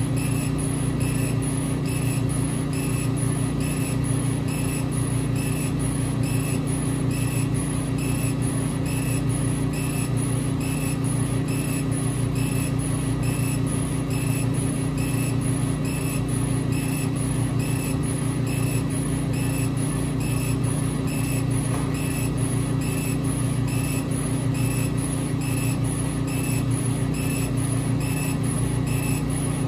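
Epilog Fusion M2 40 laser cutter engraving wood: a steady machine drone with a low hum, and a faint regular pulse about twice a second.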